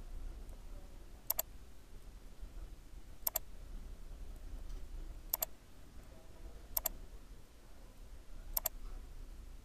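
Computer mouse button clicking five times, about every one and a half to two seconds, each click a quick double tick of press and release, over a low steady hum.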